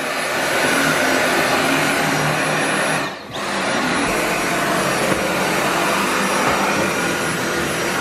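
Dyson V7 Motorhead cordless stick vacuum running as its motorised brush head is pushed over carpeted stairs. The steady drone dips briefly about three seconds in, then picks back up.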